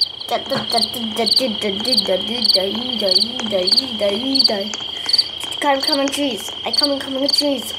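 Video-game night forest ambience: crickets chirping, a steady high trill with short chirps repeating about twice a second, over lower wavering calls that are loudest in the first half and again near the end.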